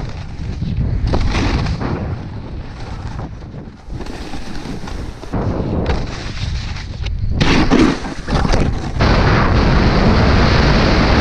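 Snowboard sliding and scraping over hard-packed snow and along a terrain-park box, with wind buffeting the rider's mouth-mounted GoPro. The noise comes in irregular rushes, then settles into a steady loud rush near the end as the board runs down an open slope.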